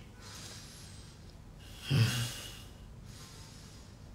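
A man's short voiced exhale about two seconds in, against quiet room tone.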